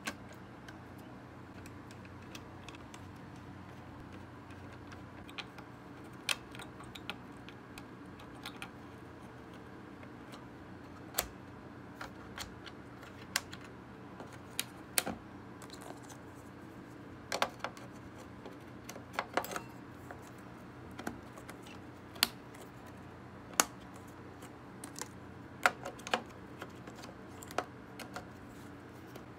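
Irregular sharp clicks and light knocks of hands handling desktop PC parts, the CPU heatsink-and-fan assembly and the memory modules, on the motherboard in its steel case. They come every second or so over a faint steady hum.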